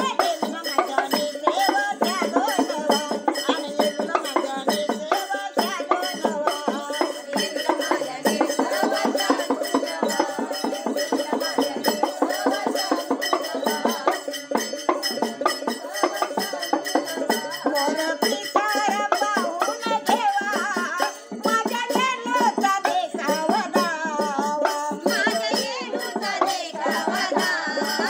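Women, among them an elderly woman, singing a Yellamma devotional folk song together over fast, steady rhythmic percussion.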